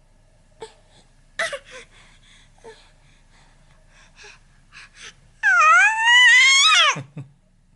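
Baby crying: a short falling cry about a second and a half in, a few faint fussing sounds, then one long high-pitched wail about five and a half seconds in that rises and drops away at its end.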